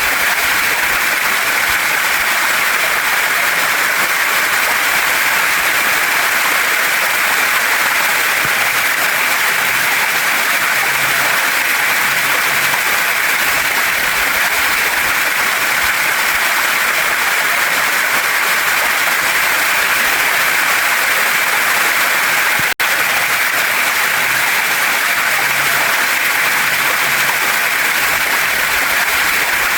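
Waterfall and stream water rushing in a steady, dense hiss, with a momentary dropout about two-thirds of the way through.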